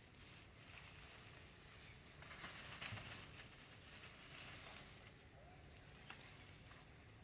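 Near silence: faint forest ambience with a few soft rustles, a little louder about three seconds in.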